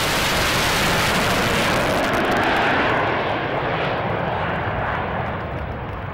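B-52 bomber's eight jet engines roaring in a low flyover. The sound dulls from about halfway through and fades as the aircraft climbs away.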